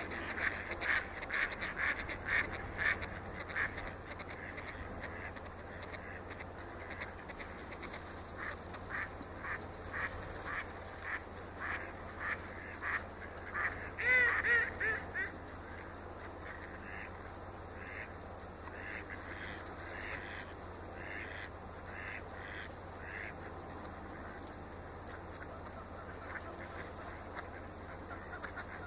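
A flock of ducks quacking: a dense clamour of calls at first, then a run of single quacks about twice a second with one louder call about 14 seconds in, after which the calls thin out and grow fainter. A steady low rumble runs underneath.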